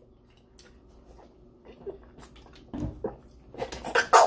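Handling noises: a plastic water bottle being drunk from and a paper napkin rustling, scattered clicks that grow denser and louder near the end.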